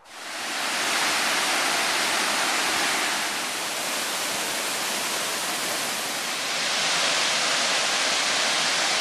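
Waterfall crashing down a rock face into a pool, heard close: a steady, loud rush of falling water that starts abruptly and dips slightly in the middle.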